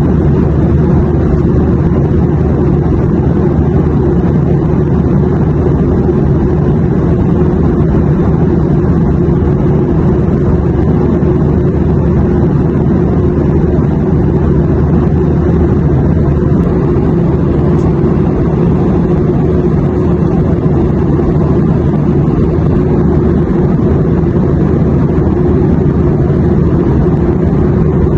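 Airliner cabin noise in flight: a steady, even low rumble of engines and rushing air that does not change.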